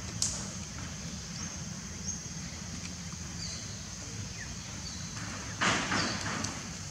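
Outdoor ambience: a steady high insect buzz and brief bird chirps over a low hum. A sharp click comes a quarter of a second in, and a short rustle, the loudest sound, comes near the end.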